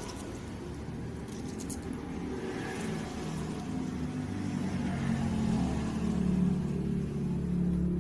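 A motor vehicle engine running with a low, steady hum that grows louder in the second half.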